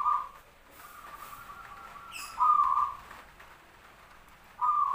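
Zebra dove (perkutut) cooing: three short, loud coo phrases about two seconds apart, with a fainter drawn-out note between the first two.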